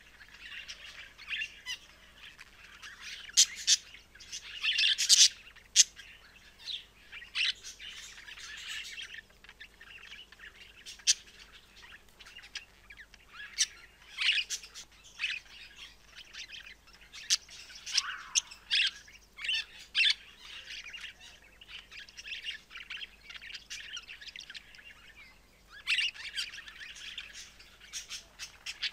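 Budgerigar warbling and chattering: a steady run of quick high chirps and squeaky notes, broken by sharper, louder calls, the loudest about five seconds in.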